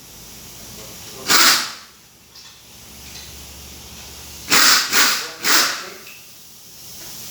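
Compressed-air blow gun hissing in short blasts: one, then three in quick succession.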